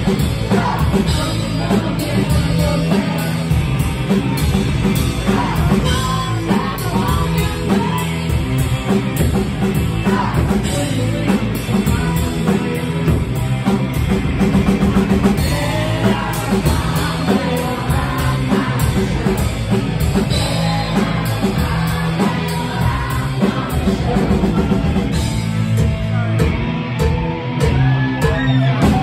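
A live grunge-punk band playing at full volume: distorted electric guitars, bass and a drum kit, with shouted vocals at times.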